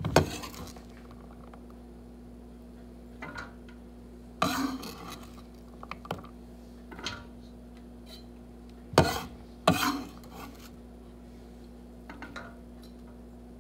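Kitchen knife knocking and clinking against a wooden cutting board and cookware as chopped onion is scraped off the board. A handful of separate sharp knocks, the loudest two close together about nine seconds in.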